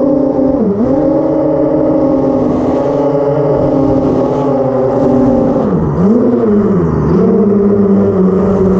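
A 10-inch FPV quadcopter's brushless motors and propellers, heard from the onboard camera, whining steadily in fast flight. The pitch drops briefly and climbs back as the throttle is chopped, once about a second in and twice around six to seven seconds in.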